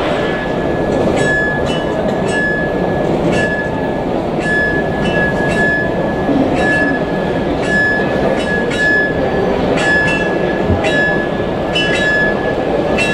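Running H0 model railway layout: a steady high ringing tone, broken now and then, with light clicks about once a second, over the steady hubbub of an exhibition hall.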